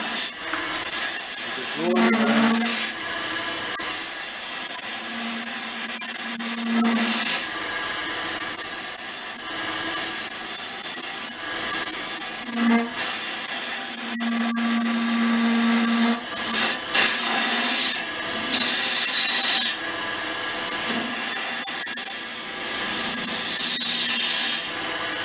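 A turning tool cutting a sycamore blank that spins at high speed on a wood lathe, roughing it to shape: a loud, hissing cut broken by about eight short pauses as the tool comes off the wood.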